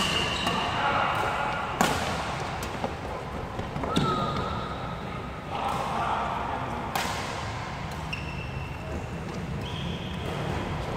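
Badminton rally: rackets striking a shuttlecock in sharp cracks every couple of seconds, about four strong hits, with short squeaks of court shoes between them.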